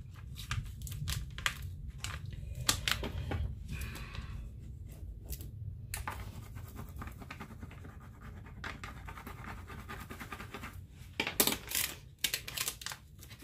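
Clear transfer tape on vinyl decal being rubbed down with a flat scraper and peeled back from a wooden board: irregular scratching and crinkling of plastic film, with a few louder crackles near the end.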